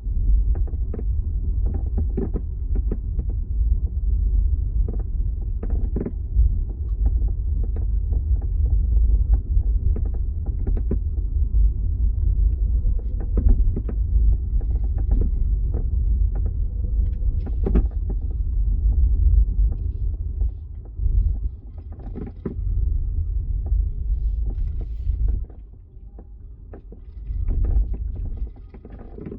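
Low road rumble in the cabin of a moving 2025 Hyundai Ioniq 5, with frequent, irregular sharp rattles and creaks from the boot (trunk) area. The rumble eases near the end while the clicks continue.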